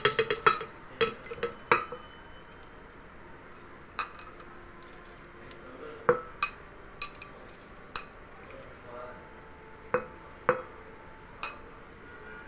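A ceramic bowl clinking and tapping against the rim of a glass blender jar as soaked moong dal and rice are tipped in: a quick cluster of clinks in the first two seconds, then single clinks every second or so.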